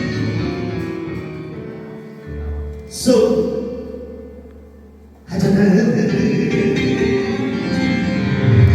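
Background music with singing. A sudden accent about three seconds in dies away, and the music comes back in full about five seconds in.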